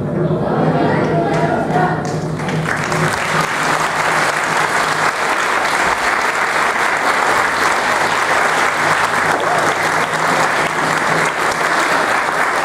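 Voices for the first two seconds or so, then an audience applauding steadily from about two and a half seconds in.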